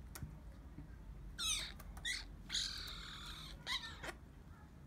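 A hungry hand-reared magpie giving about four short, harsh begging calls, wavering in pitch.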